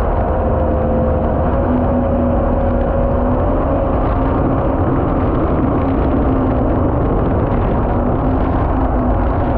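MotoJet mini jet boat's Yamaha MR-1 1.1-litre four-stroke engine running at steady speed under way, its note holding nearly level with only slight wavers. A constant rush of water and wind runs under it.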